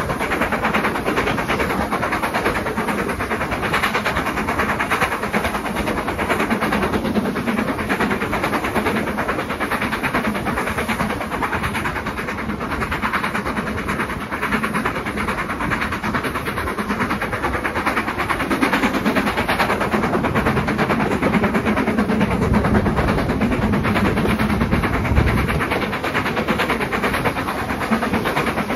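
BR Standard Class 4 tank steam locomotive 80136 working hard with a train, heard from a carriage window, its exhaust mixed with the steady running noise of the coaches on the track.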